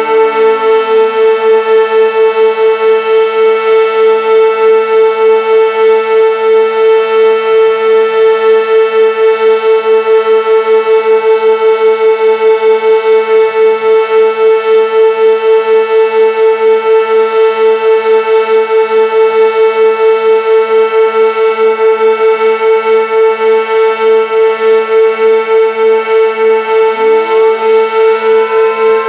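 Sentry 16V1T-B outdoor warning siren sounding its full alert: one steady, loud tone with a quick, even pulsing throughout. A second, fainter siren's pitch falls away early on and winds back up near the end.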